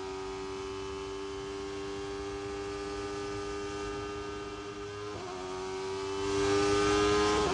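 Racing car engine note held at a steady high pitch, dipping briefly and recovering about five seconds in, then swelling with a rush of noise near the end.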